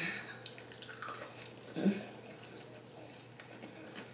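Soft, wet chewing and mouth sounds of someone eating chicken wings close to the microphone, with a short louder mouth sound about two seconds in.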